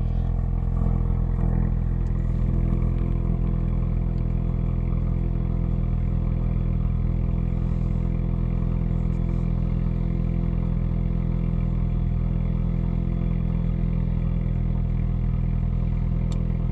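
Ford Focus RS's 2.3-litre turbocharged four-cylinder EcoBoost engine idling steadily at about 1000 rpm, heard from inside the cabin. The engine is already warm from its block heater, coolant around 42 °C, so it settles straight into a normal warm idle.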